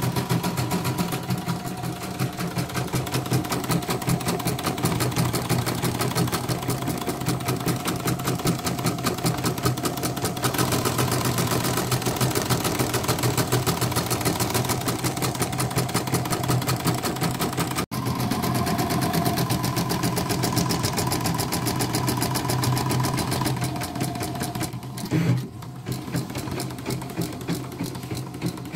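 CNY portable embroidery machine stitching at speed: a fast, even needle clatter with a steady motor hum. It runs without stopping, its new spindle sensor fitted after a 'spindle locked' fault.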